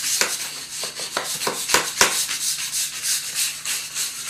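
Wire brush scrubbing a concrete wall in quick back-and-forth strokes, about three or four a second, cleaning the surface around a crack in preparation for crack injection.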